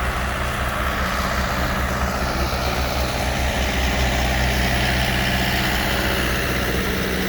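Diesel engine of a Reinert XR636 concrete pump running steadily while it pumps sand slurry.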